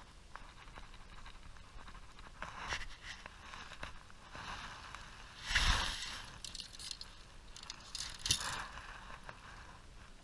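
Rustling and scraping of clothing and gear as an angler shifts about on a boat deck, with a heavy bump just past halfway and a sharper knock about eight seconds in.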